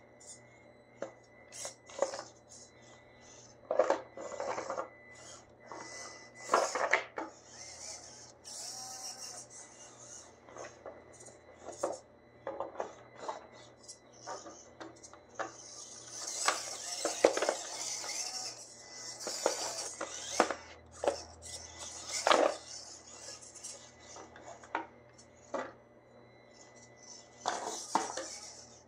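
Traxxas TRX-4M Bronco small-scale RC rock crawler clambering over hard 3D-printed plastic rocks: irregular clacks and knocks as its tires and body strike the rocks, with stretches of scraping and drivetrain whir while it climbs.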